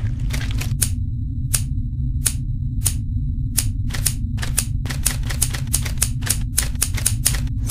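A run of sharp clicks over a steady low hum. The clicks are sparse at first, then come quickly, about four or five a second, from about halfway through.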